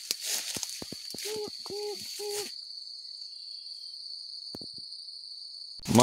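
Tall grass and brush rustling and snapping as someone pushes through it, over a steady high insect drone. About a second in come three short, even, low hoot-like notes. Halfway through, the rustling cuts off suddenly and only the insect drone is left.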